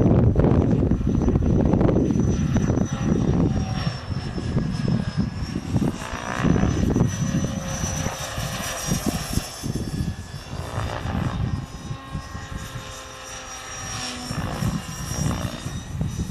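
Gaui Hurricane 550 flybarless RC helicopter in flight: a steady high whine from its drive, its tone rising and falling a few times as it manoeuvres. Wind buffets the microphone throughout, most heavily in the first few seconds.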